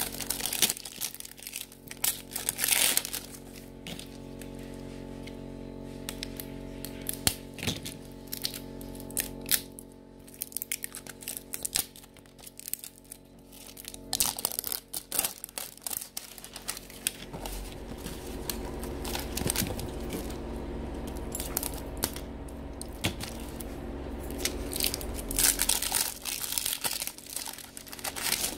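Plastic shrink wrap and the paper wrapper of a toy capsule ball being torn off and crumpled by hand, in irregular bouts of crinkling and tearing.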